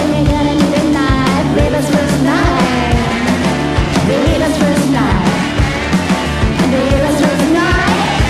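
Garage punk rock song: a woman's lead vocal over electric guitar and drums keeping a steady, driving beat.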